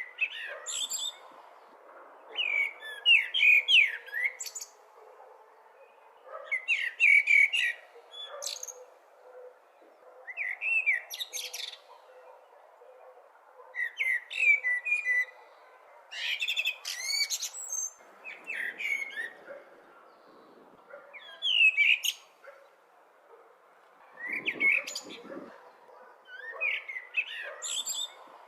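Blackbird singing: short warbled phrases, each ending in a high twitter, repeated about every three seconds with brief pauses between, over a faint steady background hiss.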